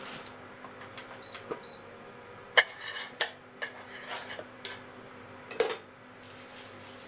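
A metal spoon clinking and tapping against a flat griddle pan as bread slices are laid on it: a handful of short, sharp clinks, the loudest about two and a half seconds in.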